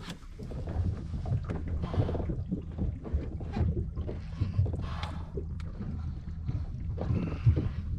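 Steady low wind rumble on the microphone, with water slapping against a small boat's hull now and then.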